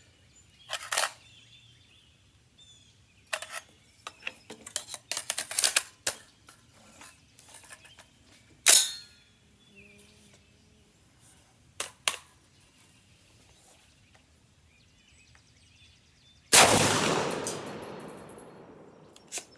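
Metallic clicks and clacks of an AR-style rifle being handled and loaded, scattered over the first dozen seconds, then a single loud rifle shot about 16 and a half seconds in, echoing away over about two seconds.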